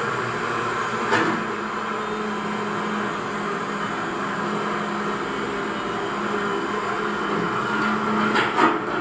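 RC model Cat 336D excavator running: a steady mechanical whine from its motors, with a sharp knock about a second in and a couple more near the end.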